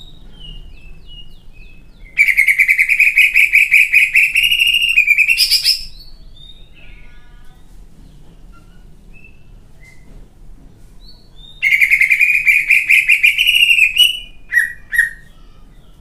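Caged green leafbird (cucak ijo) singing its rough-toned 'isian kasar' song: two loud bursts of fast, rapidly repeated notes, each a few seconds long, with faint chirps between them and two short sharp notes near the end.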